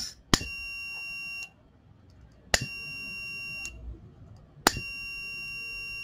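Keyestudio digital buzzer module sounding three steady, high-pitched beeps of about a second each, each starting with a sharp click. This is the flame alarm going off each time the flame sensor picks up a flame.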